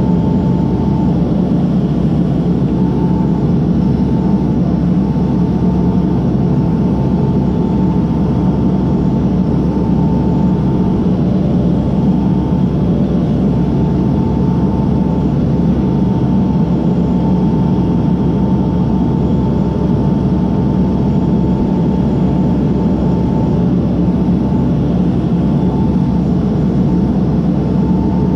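Case backhoe's diesel engine running steadily, with a thin, steady high whine over a deep rumble.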